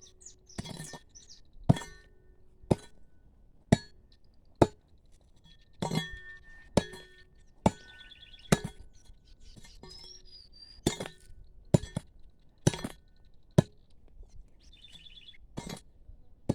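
Small hoe chopping into root-filled ground, about one blow a second with a short pause midway, each strike giving a sharp metallic clink.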